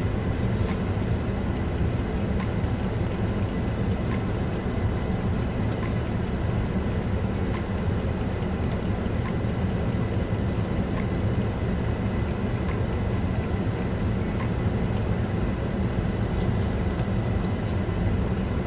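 Steady low rumble and hum inside a car's cabin, of the kind an idling car makes, with scattered small clicks and rustles of eating.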